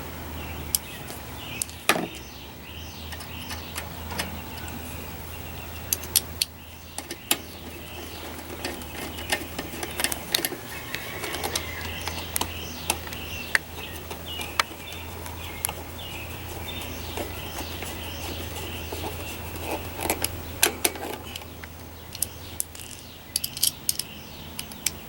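Scattered light clicks and clinks of hand tools and small metal parts being handled, over a steady low hum, with birds chirping faintly.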